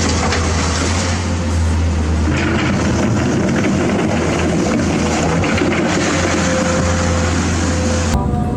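Steady engine rumble with a low hum and a hiss above it, of the kind an excavator makes, cutting off suddenly near the end.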